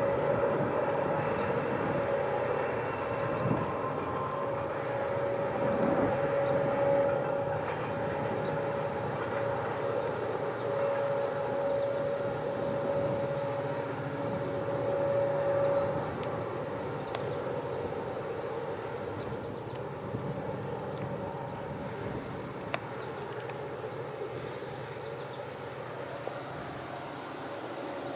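Insects chirping steadily over the fading rumble of a freight train moving off into the distance. A steady hum from the train dies away about halfway through.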